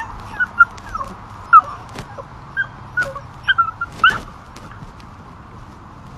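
Beagle puppy whimpering in a run of short, squeaky, high cries that stop about four seconds in. It is a put-on whine, the puppy faking an injured leg.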